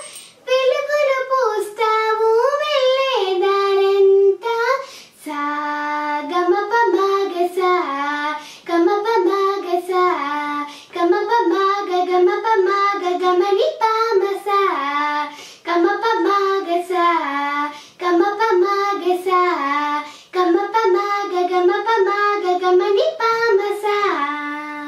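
A young girl singing a Telugu song solo, with no instrument heard, in melodic phrases broken by short breaths.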